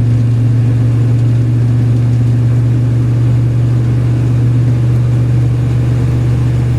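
Car driving along a road, heard from inside the cabin: a steady low engine and road drone.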